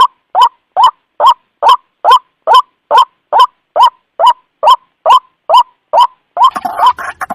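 White-breasted waterhen calling: a loud, steady series of short notes that each slide upward, a little more than two a second. Near the end the notes crowd together into a rougher, overlapping run.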